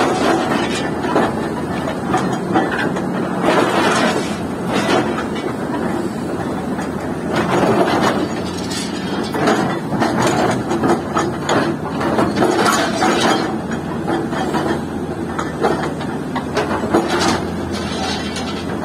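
Excavator-mounted hydraulic breaker hammering concrete with a rapid, continuous pounding, the excavator's diesel engine running under it. The hammering swells louder in several stretches as the chisel bites into the dam's concrete wall.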